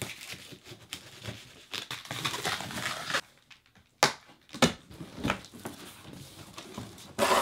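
Cardboard shipping box being opened: a blade slitting the packing tape with a rustling scrape, then a few sharp snaps as the cardboard flaps are pulled loose, and a last scrape of cardboard near the end.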